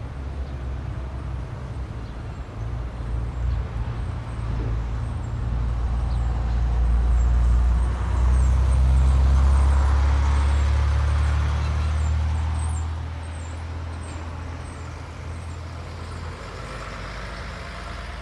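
Heavy diesel engine running with a low, steady drone. It grows louder through the middle, is loudest around halfway, and then eases off again.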